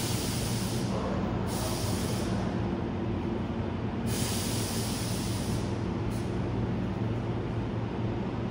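Hankyu 8000-series electric train at a station platform, its equipment giving a steady low hum while compressed air hisses in several bursts, as from the air brakes.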